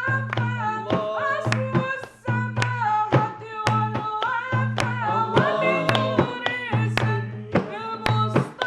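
A male voice singing an Arabic devotional song in praise of the Prophet Muhammad, with ornamented, winding melodic lines. Under it is a steady low drone, and sharp percussion hits come at a regular beat.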